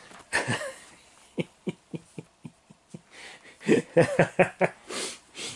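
A man laughing to himself: a run of short, soft chuckles, then a louder burst of laughter about four seconds in, with breaths in between.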